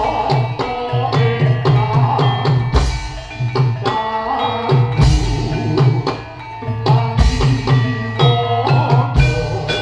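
Javanese gamelan music: hand drums beat a quick rhythm under many ringing metal-keyed tones.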